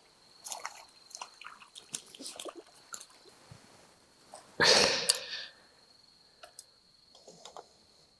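Wet handling noises of a freshly caught crucian carp held in the hand: scattered small clicks and squishes, with one louder rustle lasting about a second near the middle.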